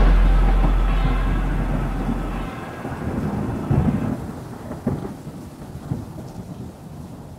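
Thunder rumbling over rain, with a few sharp cracks through the middle, fading out. A low held note underneath stops about two and a half seconds in.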